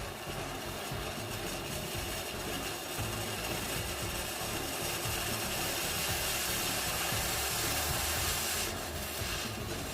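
TIG welding arc from a Parkside PMSG 200 A2 welder burning with a steady hiss, cutting off about nine seconds in.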